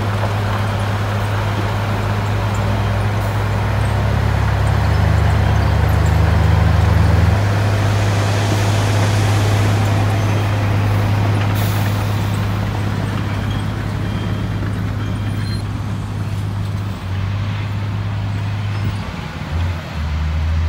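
Heavy diesel dump truck engines running with a steady low drone while rock and dirt rush out of a raised tipper bed; the engine note steps down about seven seconds in. A short sharp hiss comes about halfway through.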